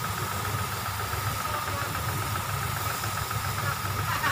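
A motor running steadily with a fast, even pulsing, together with the hiss of a water jet being sprayed at the coach.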